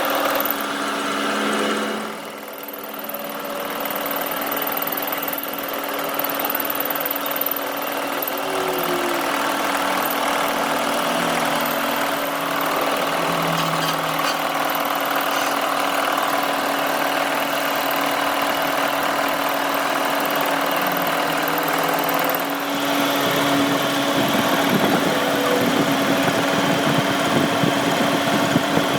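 Workshop machine with an electric motor running steadily, with a constant hum and steady tones. It dips briefly about two seconds in and turns louder and rougher near the end, as if it were cutting or grinding.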